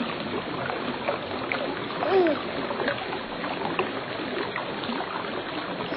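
Steady running and splashing water, with a short falling call about two seconds in.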